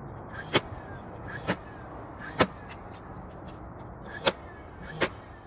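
Pneumatic nail gun firing five sharp shots at irregular intervals about a second apart, fastening cabinet parts together.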